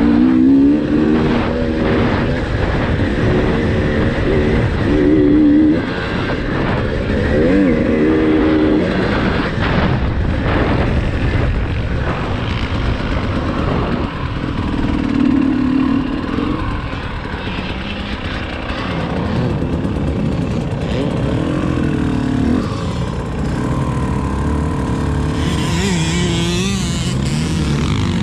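Two-stroke KTM 300 TPI dirt-bike engine, heard from on the bike, revving up and dropping off again and again as it is ridden.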